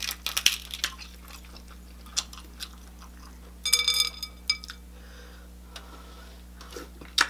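Close-miked crackling and snapping of a cooked shellfish shell being pulled apart by hand. About halfway through comes a short clatter with a ringing tone as the meat is dipped into a glass bowl of sauce, and then quieter eating and mouth sounds.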